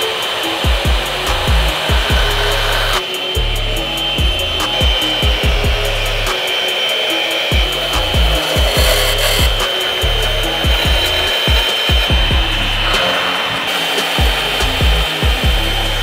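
A power saw cutting through a truck's throttle body, with a steady high-pitched whine that wavers slightly as it bites, over background music with a bass beat.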